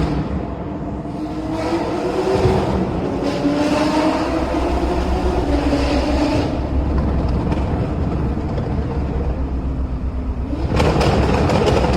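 Turbocharged car engine revving, its pitch rising and falling several times, with a louder surge near the end.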